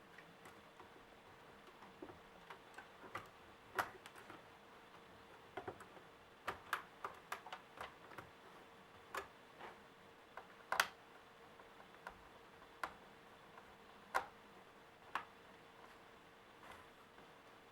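Irregular light clicks and taps of small laptop parts and screws being handled during disassembly, about two dozen of them, thickest in a quick run in the middle, over a faint steady hum.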